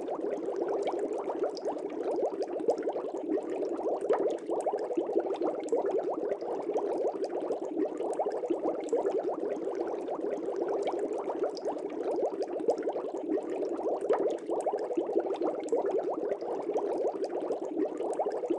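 Aquarium water bubbling steadily, a dense continuous crackle of small bubbles.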